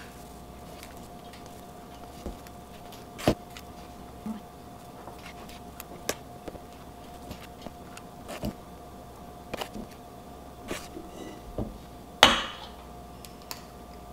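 Scattered clicks and light knocks of a metal dough scoop against a steel mixing bowl and a baking tray as biscuit dough is scooped and dropped, the loudest knock about twelve seconds in. A faint steady hum runs underneath.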